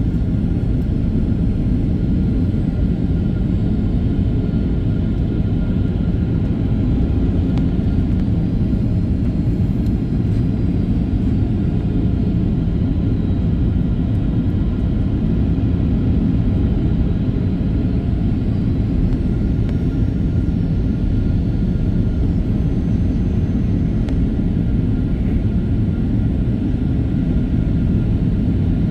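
Steady in-flight cabin noise of a Boeing 737-800: a low, even rumble of airflow and CFM56-7B engine noise heard from inside the cabin, with faint steady whine tones above it.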